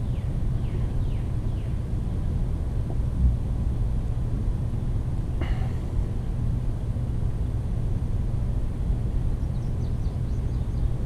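Steady low machine hum, with a single short click about five and a half seconds in.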